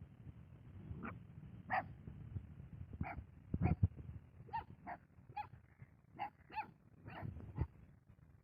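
Puppies giving short, high yips and small barks, coming thick and fast in the second half, with a couple of low knocks a little before the middle.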